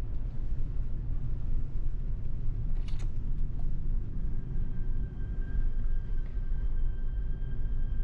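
Steady low rumble of a fast ferry's engines and hull vibration heard inside the ship, with a single click about three seconds in and a faint steady high tone from about four seconds on.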